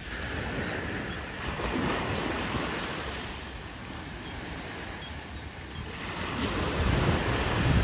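Surf washing on a beach, with wind buffeting the microphone. It ebbs and swells, growing louder toward the end.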